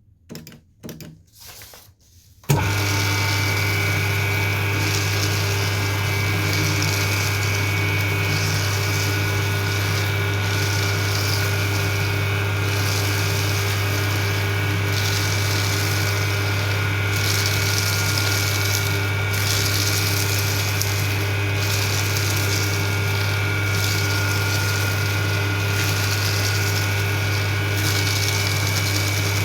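Electric paper shredder: a few short, quieter sounds, then about two and a half seconds in the motor starts and runs steadily with a low hum and a whine. Paper is being cut throughout, heard as a high rustling hiss that swells and fades.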